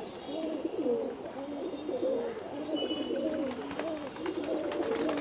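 A flock of domestic pigeons cooing, many birds' coos overlapping without a break.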